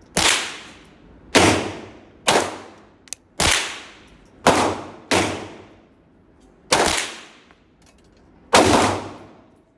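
.22 pistol fired eight times at an uneven, deliberate pace, each sharp crack followed by a short ringing tail.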